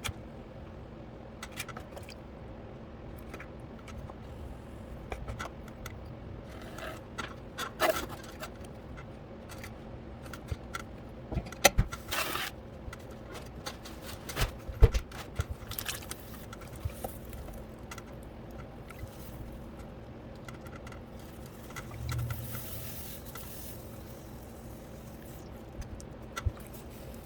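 Pottery work noises over a steady low hum: scattered clicks, knocks and scraping of tools and clay, with a short hissing swell near the end.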